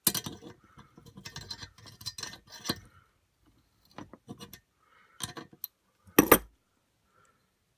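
Metal-on-metal clinks and clicks of hand tools working a broken screw out of a wood stove door, in quick runs, with a heavier clunk about six seconds in.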